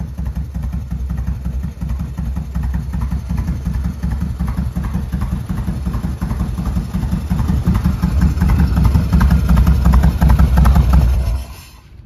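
Harley-Davidson FXR's V-twin engine running with an even low pulsing beat, growing louder toward the end, then stopping abruptly shortly before the end.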